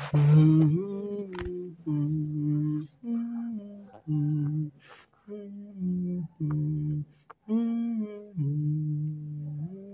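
A person humming a slow wordless tune, holding one note after another in short phrases with brief pauses between them.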